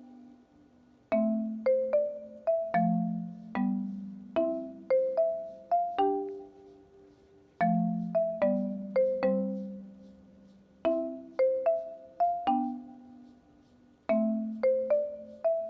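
Background music: a light melody of struck, ringing notes on a marimba-like mallet instrument over lower notes, played in short phrases that repeat every few seconds.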